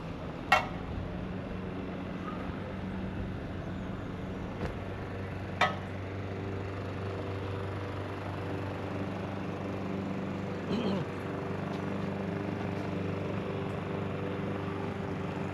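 Steady low motor hum, like an engine running nearby. Two sharp knocks stand out, about half a second in and again about five seconds later.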